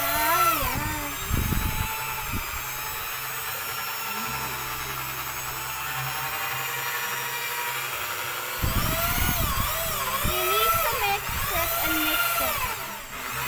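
Electric hand drill stirring a bucket of soap mixture with a mixing rod, very noisy. Its motor whine holds fairly steady through the middle, then swings up and down in pitch several times over the last few seconds as the speed changes.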